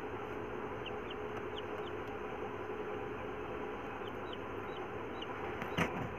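Newly hatched Kadaknath chick peeping: short, high, falling peeps, four in a row about a second in and four more after about four seconds, over a steady hiss. A single sharp click near the end.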